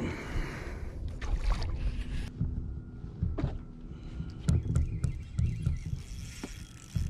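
Scattered knocks, clicks and water sounds on a kayak as a hooked redfish is brought in alongside.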